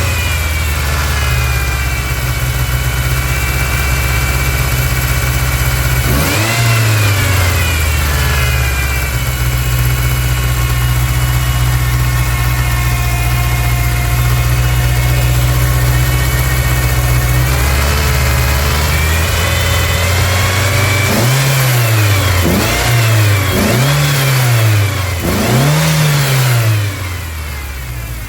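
1999 Ford Ranger 2.5-litre four-cylinder engine running with a massive vacuum leak. It is revved once about six seconds in, then blipped four times in quick succession near the end before settling back to a quieter idle.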